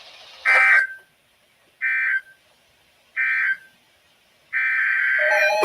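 Emergency Alert System (SAME) digital data bursts: three short, high-pitched bursts of data tones about a second apart, the end-of-message code that closes an alert. A fourth, longer data burst starts near the end, with a lower steady tone joining it just before the close.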